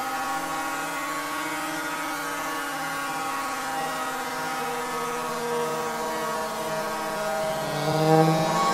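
Electronic music: a dense drone of many layered steady tones that slowly shift, swelling louder about eight seconds in.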